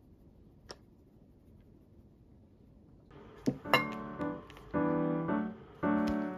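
Faint room tone with one small tick for about three seconds, then background piano music starts. Two sharp clicks come just after it begins.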